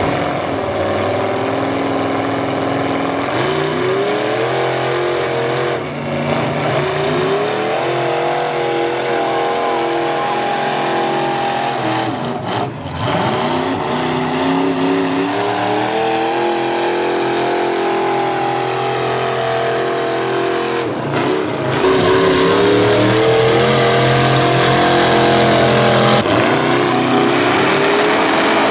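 The 540 cubic-inch big-block Chevy V8 of a monster truck, with a second truck's engine alongside, revving hard under full load while pulling. The revs sag and climb back about three times.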